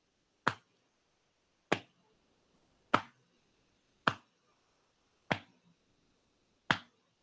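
Six slow, evenly spaced palm slaps on the upper arms, hands alternating with the arms crossed (the 'butterfly' self-tapping exercise), about one every second and a quarter: the slowed pace used for calming down.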